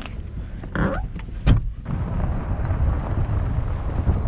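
A thump about a second and a half in, then the steady engine and road noise of a taxi driving along.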